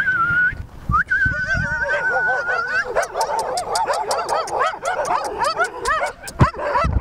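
A person gives two long, slightly wavering whistles, and a pack of stray dogs answers with barking and yipping. The barks start about a second and a half in and grow into many dogs barking at once.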